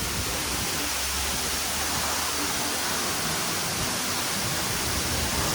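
Waterfall rushing: an unbroken, steady noise of falling water.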